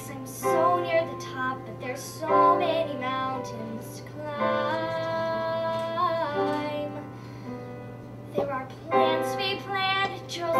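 A girl singing a musical-theatre song with piano accompaniment, in short phrases and then one long held note with vibrato through the middle.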